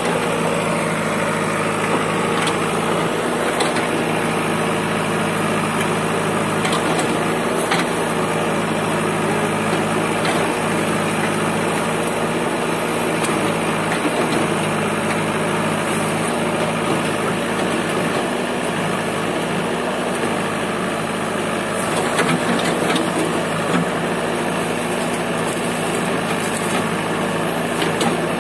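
JCB backhoe loader's diesel engine running steadily at an even speed, with a few faint knocks along the way.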